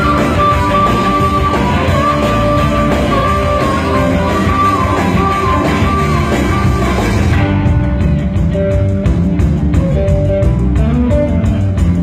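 Blues band playing, with a lead line bending between notes over bass and drums. About seven seconds in, the bright top end drops away and the melody moves to lower held notes.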